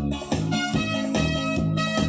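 Instrumental worship music: plucked guitar and bass over a steady, even beat.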